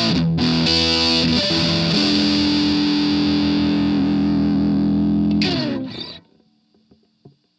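Electric guitar (Ibanez RG550) played through an MXR Custom Badass '78 Distortion pedal: a few distorted chords, then one chord held for several seconds and cut off about six seconds in, leaving faint amp hum and a small click.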